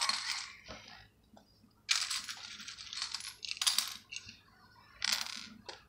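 Small plastic Lego pieces clattering as a hand rummages through a pile of loose bricks, in several short bursts.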